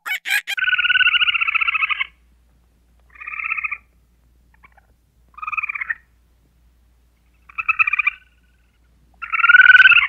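An animal's buzzy, trilling calls: one long call of about a second and a half near the start, then four shorter calls about two seconds apart.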